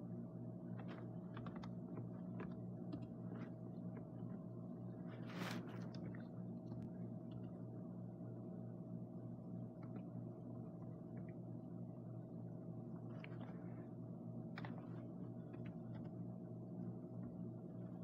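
Faint steady electrical hum with scattered faint clicks and taps at irregular intervals, one sharper tick about five and a half seconds in.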